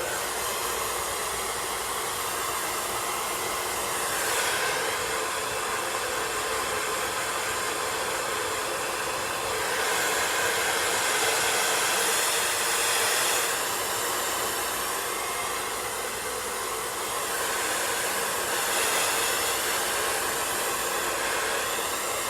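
Handheld blow dryer running continuously, a steady rushing of air whose tone shifts every few seconds as it is moved about.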